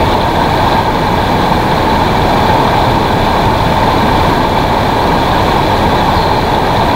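Fast, shallow river riffle rushing loudly and steadily close to the microphone.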